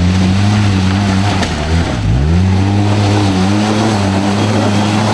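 Polaris RZR-S side-by-side's twin-cylinder engine running hard under load as it climbs a rocky ledge. The revs drop sharply about two seconds in, then climb straight back up and hold with a slight waver.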